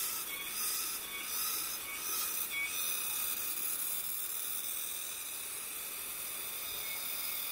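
Shallow mountain stream rushing over rocks and small rapids: a steady hiss, mostly high-pitched.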